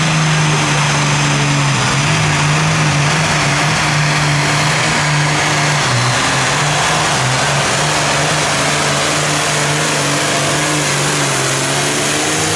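Ford 8000 super stock tractor's diesel engine running flat out under full load while pulling the sled: a loud, steady engine drone over a dense roar, its pitch rising slightly near the end.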